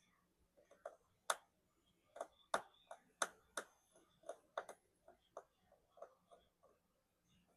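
Faint, irregular clicks and taps of small precision repair tools working the tiny screws inside an iPhone 16, about a dozen sharp ticks with uneven gaps.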